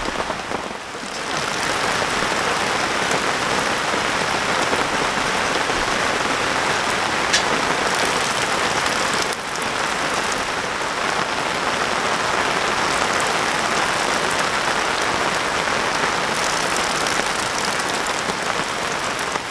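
Very heavy rain pouring down, a dense, steady hiss of the downpour.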